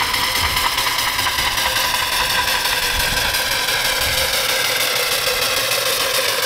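A 3-inch scale Allchin steam traction engine running under steam as it drives forward: a steady, noisy mechanical running sound with irregular low thumps.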